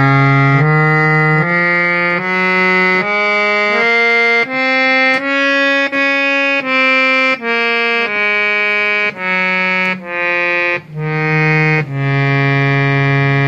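Reed harmonium played on its bass reeds alone: a scale of single notes, each under a second, climbing an octave and coming back down, ending on a long held low note.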